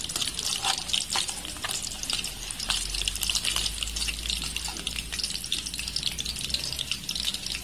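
Small egg-battered fish deep-frying in hot oil in a wide metal pan: a dense, steady sizzle with many crackling pops.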